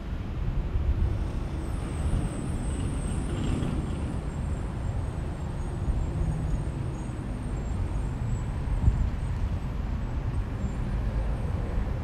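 Steady outdoor ambience of low traffic rumble, with a faint high thin whine through most of it.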